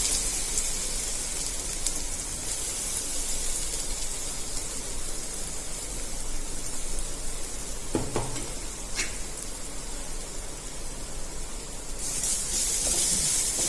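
Coarsely ground pepper, cumin and ginger spice mix sizzling in hot tempering oil with mustard seeds, dried red chillies and asafoetida in a pan. The sizzle is loudest at first, eases, then grows louder again near the end, with a light knock of a utensil on the pan about eight seconds in.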